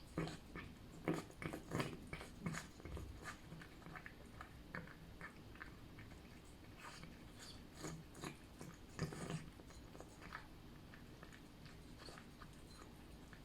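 A cat chewing jelly-type wet food: many quick, irregular wet clicks, busiest in the first few seconds and again past the middle, thinning out near the end.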